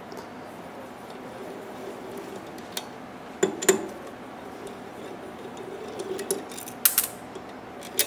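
T-handle hex key working the head bolts of a hydraulic diaphragm metering pump: short metal clicks and clinks in small clusters, the loudest about three and a half seconds in and again about seven seconds in.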